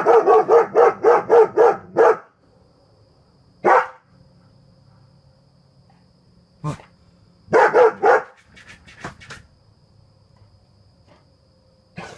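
German shepherd alarm-barking at the dark: a fast run of about eight barks, then single barks, a second burst of three or four about two-thirds of the way through, and a last bark at the end.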